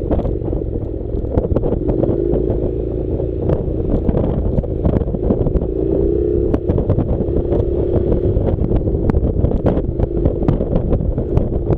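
Honda NC700's parallel-twin engine running on a rough dirt track, with a wavering steady drone and heavy wind rumble on the microphone. Frequent sharp clicks and knocks from the bike jolting over stones.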